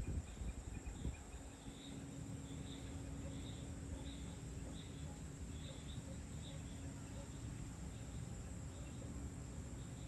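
Insects chirping at dusk: short, high chirps repeating about twice a second, over a low steady rumble and a faint hum. There are a few low thumps in the first second.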